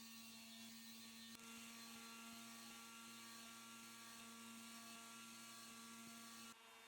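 Faint steady hum of several fixed tones, the lowest the strongest, cutting off abruptly near the end.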